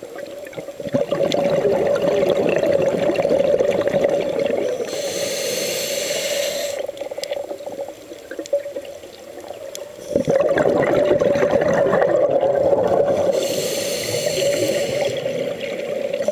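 Scuba regulator breathing underwater: two long exhalations of rushing, bubbling air, each followed by the hiss of an inhalation through the regulator.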